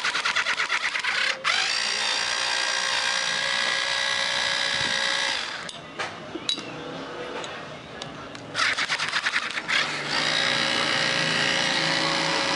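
Cordless drill-driver backing out the screws of a bullet tweeter's horn rim: twice, a second or so of rapid clicking gives way to a steady motor whine, with a quieter pause between the two runs.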